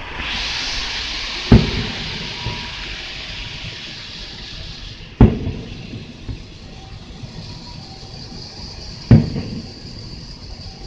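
Aerial firework shells bursting: three loud booms roughly four seconds apart, each trailing off in a low rumble, over a steady hiss.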